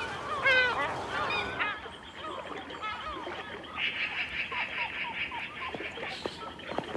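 Seagulls crying, several overlapping calls that die away about a second and a half in. Fainter scattered chirps follow, with a brief rapid trill in the middle and a few light clicks near the end.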